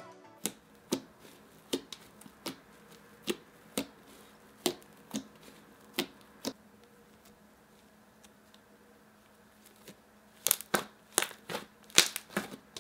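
Hands kneading, poking and squeezing fluffy slime made with school glue and shaving foam, just activated with borax solution, with a run of sharp clicks and pops about two a second, a quieter spell, then a quick flurry of louder pops near the end.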